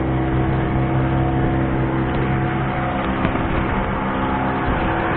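A boat engine running steadily at cruising speed, an even, unchanging drone.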